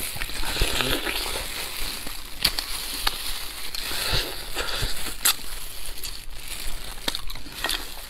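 Close-miked eating sounds: a person chewing and sucking meat off a spicy rabbit head, with wet smacking and irregular sharp crunches and clicks.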